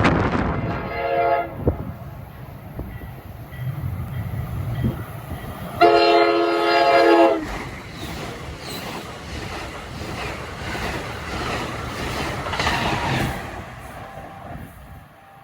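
A passing train sounds its horn, a short blast and then a longer, louder one a few seconds later, over the rumble and clatter of wheels on rail, which fades away near the end.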